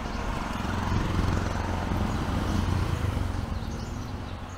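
A motor vehicle's engine passing close by on a city street: a low hum that grows louder, holds for a couple of seconds, then fades, over steady traffic noise.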